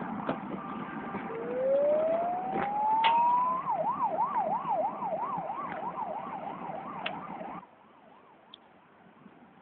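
A siren: a single tone rises steadily for about two seconds, then swings quickly up and down about three times a second before cutting off abruptly. A few light knocks come through it.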